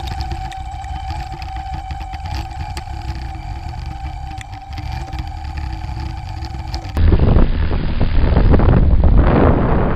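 A steady high whine over a low wind rumble while the crashed quadcopter lies on the ground. About seven seconds in it cuts to loud wind buffeting on the onboard camera's microphone as the quadcopter flies.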